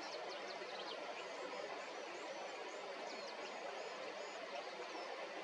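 A steady, even rush of outdoor background noise, with faint, high bird chirps scattered through the first half.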